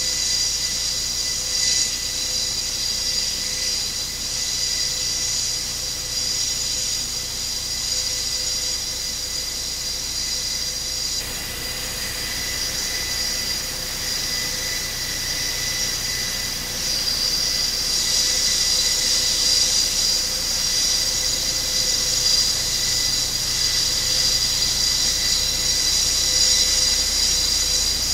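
Airbus A400M Atlas's four TP400 turboprop engines running on the ground with propellers turning: a steady high-pitched whine over a low rumble, growing louder about two-thirds of the way through.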